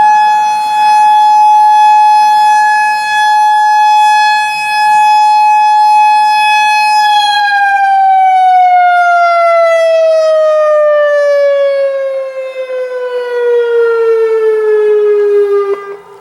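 Federal Signal EOWS 612 electronic warning siren sounding its steady Alert tone. About seven seconds in, the pitch starts sliding steadily down, falling to about half over some nine seconds, and the sound cuts off near the end as the siren winds down to finish the test signal.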